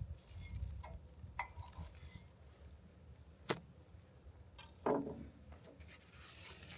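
Cooking gear being handled: a few scattered light clicks and knocks, the loudest about five seconds in, over a faint low rumble.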